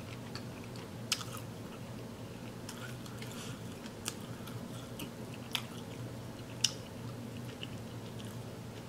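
Close-miked mouth sounds of someone chewing food from a seafood boil: soft chewing with a few sharp wet clicks spaced a second or more apart, over a low steady hum.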